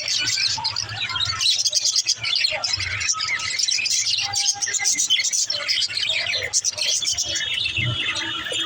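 Budgerigars chirping and chattering: a dense, continuous run of quick high chirps, with a few short held whistled notes near the end.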